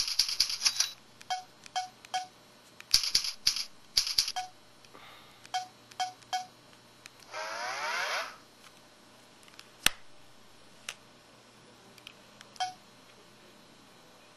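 Samsung SPH-X7500 mobile phone: key presses making clicks and short button beeps, with a one-second electronic effect sound of sweeping pitch about halfway through, then a few single clicks.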